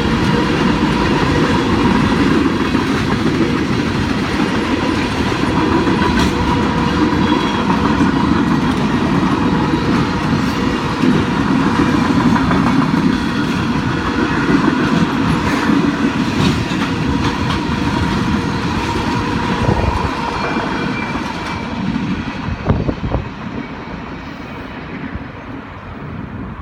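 CSX freight train's cars rolling past on the rails, wheels clicking over the rail joints in a steady clickety-clack. The sound falls away about 20 seconds in as the train passes, with a few sharp clicks near the end.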